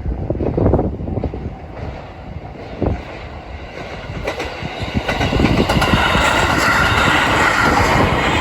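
JR Iida Line train passing over a level crossing, its running noise and wheel clatter building from about four seconds in and staying loud. Wind buffets the microphone in the first half.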